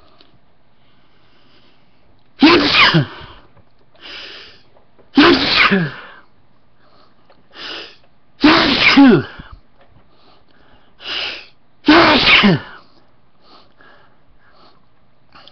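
A person sneezing four times in a row, about three seconds apart. Each sneeze is loud and trails down in pitch, with short, quieter sounds between them.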